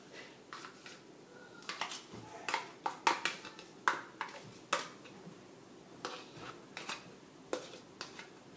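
Mascarpone being scraped out of a plastic tub into a plastic mixing bowl: scattered light scrapes, taps and knocks.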